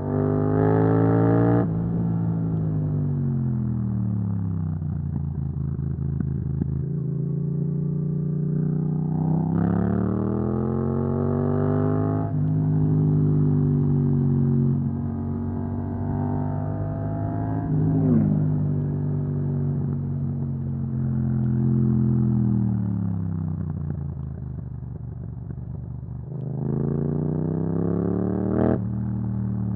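Yamaha MT-07's parallel-twin engine through an Akrapovic exhaust, accelerating hard three times with a steeply rising pitch. Each run is followed by a long fall in pitch as the bike rolls off and slows on the engine.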